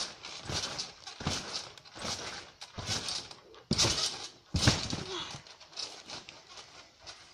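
Trampoline bouncing: a steady run of thumps on the mat and springs, a little under a second apart, as a boy jumps. The loudest thuds come about four to five seconds in as he does a frontflip and lands.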